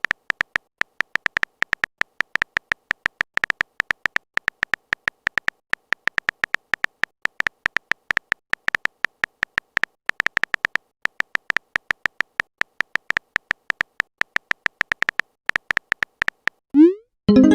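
Fast, irregular run of short electronic ticks, several a second, like a phone keyboard's typing sound effect as a text message is typed out. It stops near the end and is followed by a short rising swoop, like a message being sent.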